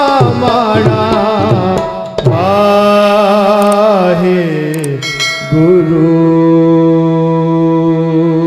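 Gurbani kirtan: a male voice sings a drawn-out phrase over harmonium and tabla. About five seconds in, the singing stops and the harmonium holds a steady chord as the shabad closes.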